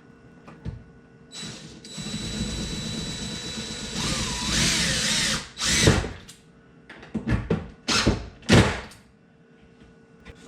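Cordless impact driver running for about four seconds as it drives a dishwasher mounting screw, followed by several sharp knocks.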